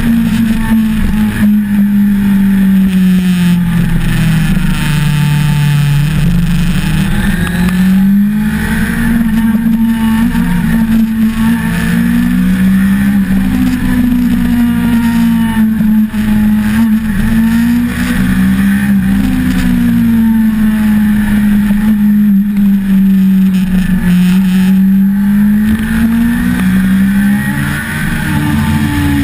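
1988 Suzuki GSX-R750J inline-four engine heard from onboard, its revs rising and falling again and again as the throttle is opened and closed, with wind noise over the microphone.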